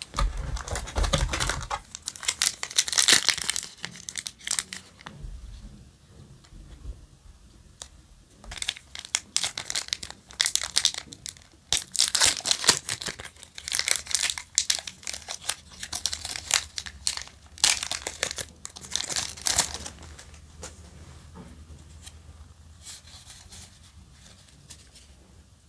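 Foil trading-card booster pack wrapper crinkling and tearing as it is handled and ripped open by hand, in repeated bursts of crackling. It goes much quieter near the end.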